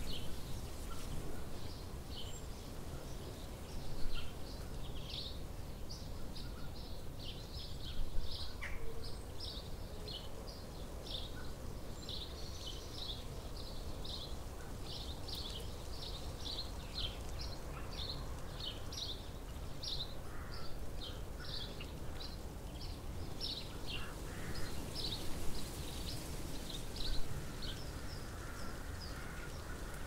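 Small songbird chirping: short, high chirps repeated several times a second, almost without a break, over steady low background noise. A louder bump comes about four seconds in and another about eight seconds in.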